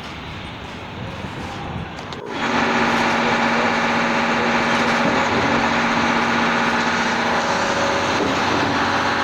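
Heavy diesel truck engine at a concrete pour running steadily and loud, coming in suddenly about two seconds in after quieter site noise.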